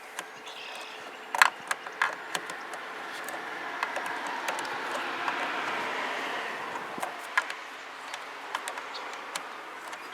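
Metal clinks and taps of a wrench working the battery terminal and cable hardware, the sharpest about a second and a half in. Under them a rush of noise swells and fades over several seconds, peaking midway.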